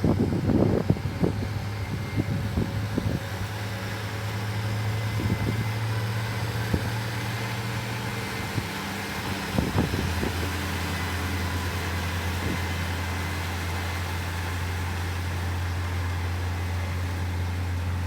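Kubota M6040SU tractor's diesel engine running steadily while ploughing. Its pitch drops slightly about halfway through, with a few knocks and clatters near the start and again around the middle.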